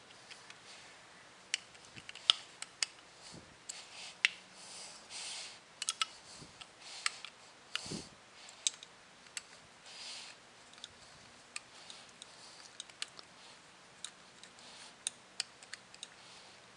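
Screwdriver driving the grip frame screws into a Colt Single Action Army revolver: irregular small metal clicks and short scrapes as the bit turns and reseats in the screw heads and the revolver is shifted in the hand.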